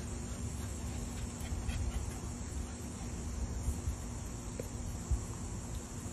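Steady outdoor background of chirping crickets or insects over a low rumble, with a soft thump about five seconds in.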